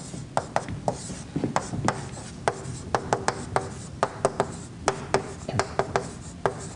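Writing on a board: an irregular run of sharp taps and light scrapes, several a second, as letters are put down stroke by stroke.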